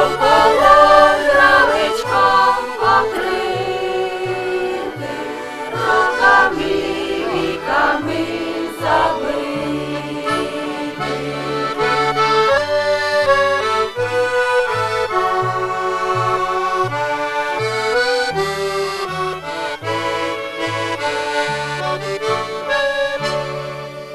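Accordion playing a traditional folk tune: held chords over bass notes that step and change beneath them, with a wavering melody in the first part.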